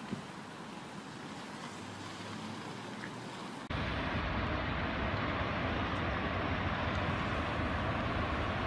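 Quiet street traffic noise, then a sudden cut to the louder, steady low rumble of a B-double truck's engine running as it drives slowly.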